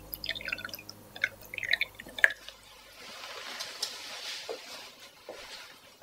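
Tea poured from a glass jug into a ceramic mug, splashing and trickling as it fills, with a few separate drips near the end.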